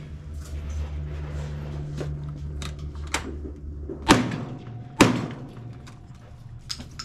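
Two rifle shots about a second apart, about four and five seconds in, from a lever-action rifle in a cowboy action shooting stage. A few lighter clicks and knocks of gun handling come before them.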